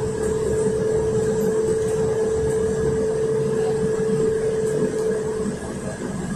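Cabin noise of a Volgabus 5270G2 city bus under way, powered by a Yuchai YC6L280N compressed-natural-gas engine: a low drivetrain and road rumble with a steady whine that fades out near the end.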